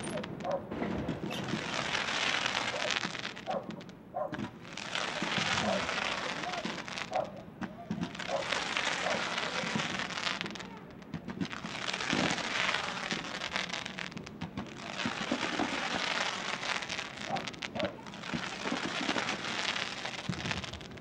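Fireworks display: dense crackling from glittering crackle shells, coming in waves about every three to four seconds with brief lulls between.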